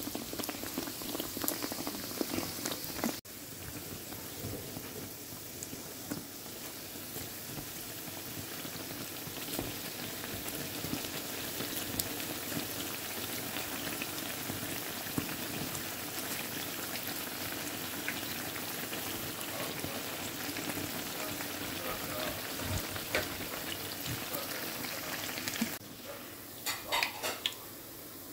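Breadcrumb-coated bread pieces deep-frying in hot oil: a steady sizzle with scattered crackles and pops, with a few louder clicks near the end.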